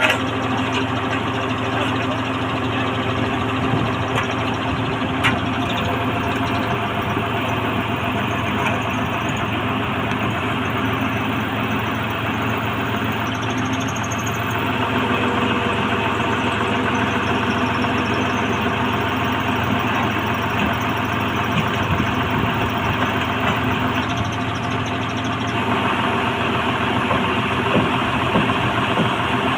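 Engine of a horizontal directional drilling rig running steadily at a constant speed.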